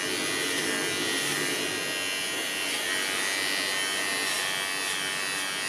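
Electric pet hair clipper buzzing steadily as it trims the fur on a dog's muzzle.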